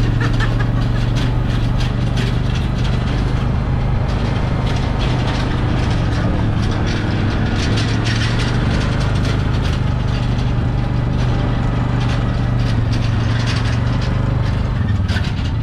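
Arctic Cat TBX 700 side-by-side running steadily under way on a woods trail, with a constant low engine hum and many small rattles and knocks. The engine eases off near the end.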